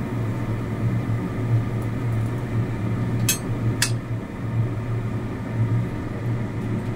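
Steady low mechanical hum, with two sharp metal clinks about half a second apart near the middle as a metal spatula knocks against the stainless steel wok while a fried prawn cracker is lifted out of the oil.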